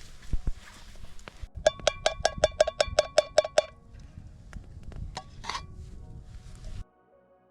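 A metal utensil clinking against a small metal cooking pot: a quick, even run of about a dozen ringing taps lasting about two seconds, with a few duller knocks around it. The sound drops away suddenly near the end.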